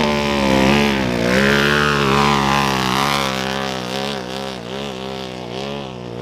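Off-road race vehicle engines running at the start line: one engine note wavers up and down, with a run of quick dips and recoveries in pitch over the last couple of seconds, over a steadier low engine hum.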